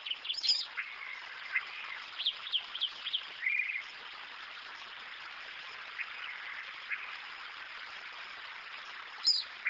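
Birds calling: a quick run of short chirps and calls in the first few seconds, scattered calls after that, and a sharp high call once near the start and again near the end, over a steady background hiss.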